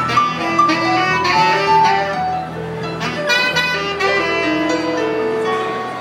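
Live jazz trio: a saxophone plays a slow melody of held notes over an archtop electric guitar and a plucked upright double bass.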